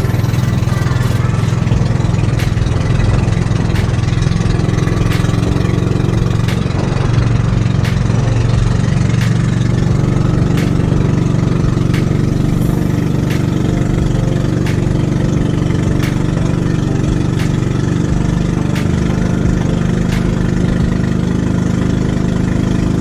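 Boat engine running steadily at an even speed, with faint scattered ticks over its hum.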